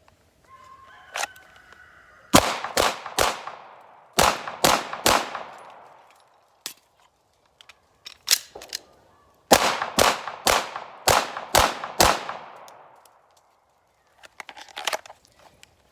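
Glock 17 Gen 5 9mm pistol firing twelve shots in a Mozambique drill with a reload. Three quick shots, a short pause, then three more. After a gap of about four seconds for the magazine change, six more shots follow in steady succession, about two a second.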